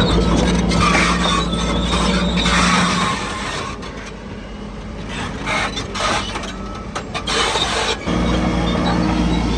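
Crawler bulldozer's diesel engine running, with metallic clatter from the machinery. The engine note falls away about three seconds in, leaving quieter clanking and knocks, and comes back strongly near the end.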